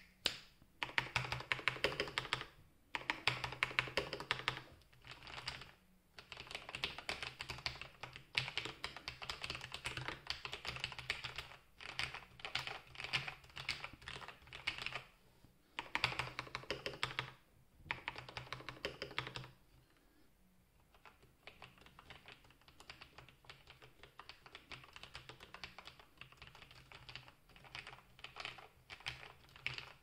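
Typing on a Corsair Strafe RGB mk.2 mechanical keyboard with lubed Cherry MX Red linear switches and lubed stabilisers: fast runs of keystrokes broken by short pauses. About two-thirds of the way through, the typing turns quieter and sparser.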